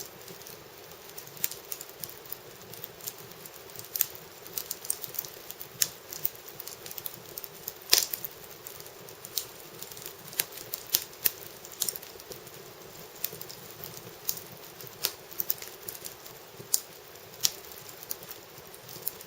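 Wood fire in an irori sunken hearth crackling: irregular sharp snaps and pops, the loudest about eight seconds in.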